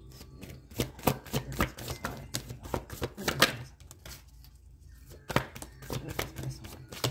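Handmade paper tarot cards being shuffled and handled, a string of irregular flicks and taps, with a short lull about four seconds in.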